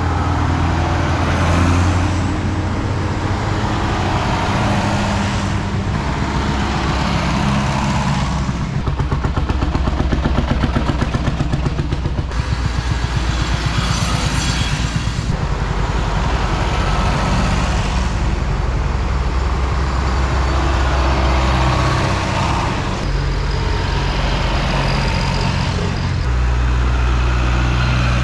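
Farm tractors with diesel engines driving past one after another, each engine swelling and fading as it goes by. There is a high whine about halfway through as one tractor passes close.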